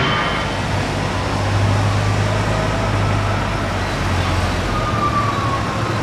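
Steady aircraft machinery noise on an airport apron, with a low hum and a high whine that slides down in pitch about five seconds in.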